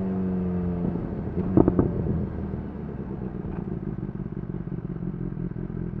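BMW S 1000 XR's inline-four engine through a Cobra slip-on exhaust with the dB killer removed, its pitch sinking as it slows, then dropping to idle about a second in. A short clatter of clicks comes around a second and a half in, and the engine then idles with a steady pulsing beat.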